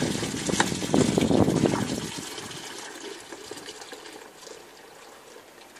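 Horse urinating into a bucket: a stream of urine splashes into it, strong for about the first two seconds, then dwindles away to a faint trickle.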